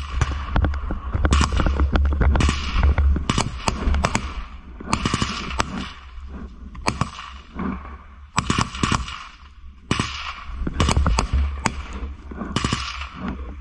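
Small-arms gunfire in a firefight: many sharp shots, some single and some in quick bursts, coming irregularly with a couple of brief lulls.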